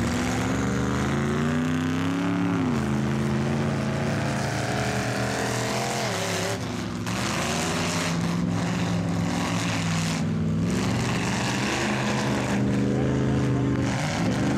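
Big mud-truck engines running hard and revving up and down several times as the trucks churn through a mud pit, over a steady wash of tyre and mud noise.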